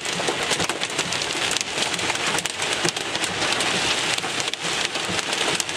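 Heavy rain mixed with small hail pelting the car's roof and windshield, heard from inside the cabin: a dense, steady hiss full of sharp ticks. It makes noise, but the hail is not big.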